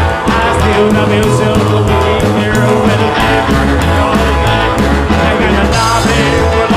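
Rock and roll music with a steady beat and singing.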